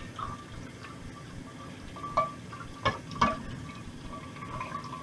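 Kitchen utensils clinking against a pan or plate: a few short sharp knocks about two to three seconds in, over a faint steady hum.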